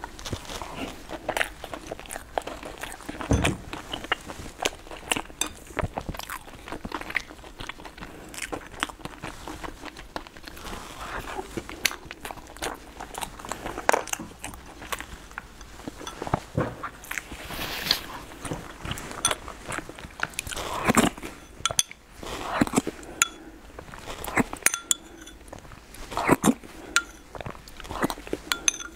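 A person eating close to the microphone: irregular biting and chewing mouth sounds with many small, sharp clicks.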